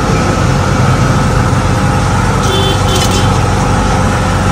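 A motor engine running steadily: a continuous low hum with a few constant tones, unchanging throughout.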